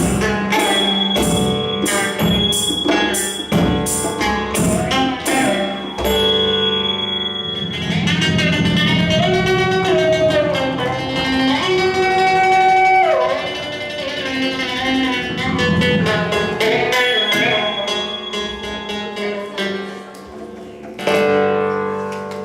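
Live band music with hand drums (djembe and wavedrum) and a plucked string instrument: a steady drum rhythm at first, then a stretch of held and sliding melody notes, the drumming returning near the end and closing on a strong final accent.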